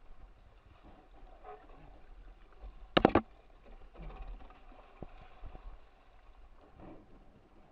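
Water splashing and lapping against the hull of an RS600FF foiling dinghy, with a single loud sharp hit about three seconds in.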